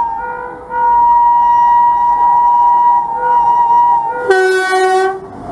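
WAP7 electric locomotive's air horn sounding long blasts as the train approaches at speed. About four seconds in the horn switches to a lower, harsher note for about a second.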